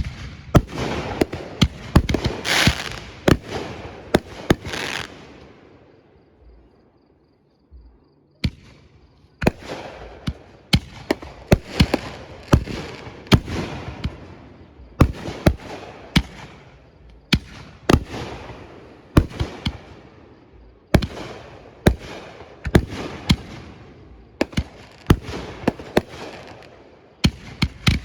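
Aerial fireworks bursting in a rapid series of sharp bangs with crackle between them. The bangs pause for about two seconds a third of the way in, then resume at about one or two a second.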